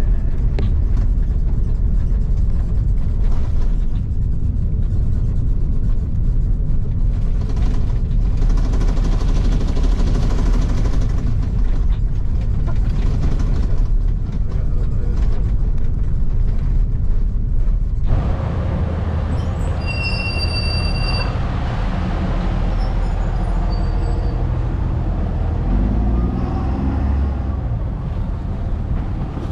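Steady low rumble of an airliner heard inside the cabin as it rolls along the runway with its spoilers raised. About eighteen seconds in, it gives way abruptly to lighter outdoor noise, with a brief high tone a couple of seconds later.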